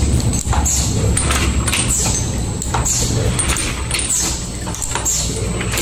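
Rotary filling and screw-capping machine for small glass olive oil bottles running: a steady low hum with a sharp clack and hiss about once a second as the turntable steps the bottles on and the capping head works.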